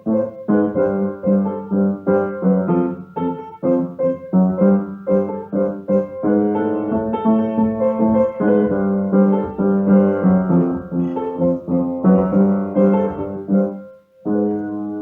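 Piano music: a quick succession of notes and chords that stops for a moment about fourteen seconds in, then resumes.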